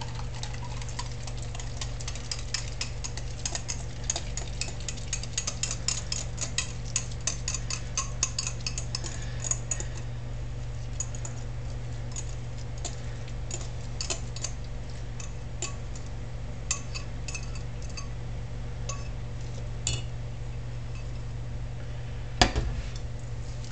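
Wire whisk stirring a thick pancake batter in a bowl, its tines clicking quickly and steadily against the bowl, then more slowly, with one louder knock near the end. A steady low hum from the running stove lies underneath.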